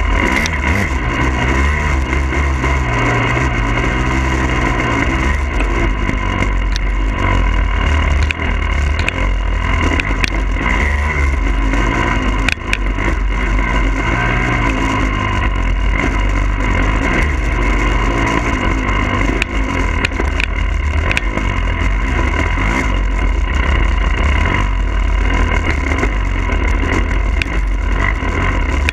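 Engine of a 2022 Husqvarna TE300i two-stroke dirt bike running loud, its pitch rising and falling as the throttle is worked while riding, over a heavy low rumble, with a few sharp clicks scattered through.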